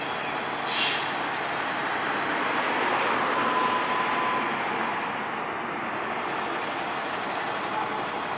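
Diesel engine of a Spartan ER MetroStar fire engine running steadily, with one short, sharp hiss of air about a second in as the air brakes are let off.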